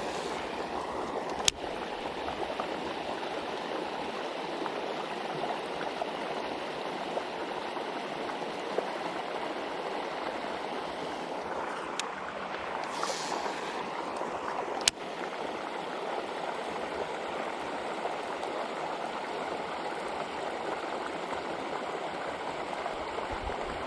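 Steady rush of flowing creek water, with a sharp click about a second and a half in and another about two-thirds of the way through.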